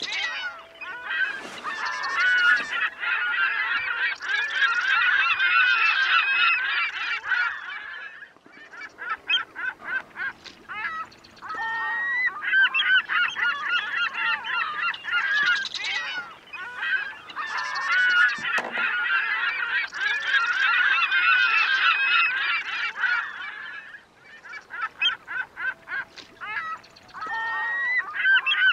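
A flock of birds, geese or gulls, calling, many overlapping calls at once. Twice the flock thins out into separate short calls before building up again.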